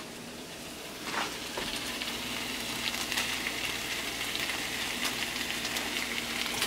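Sausage and cream cheese sizzling steadily in a frying pan, with scattered crackles, while canned diced tomatoes are tipped in. The sizzle grows a little louder about a second in.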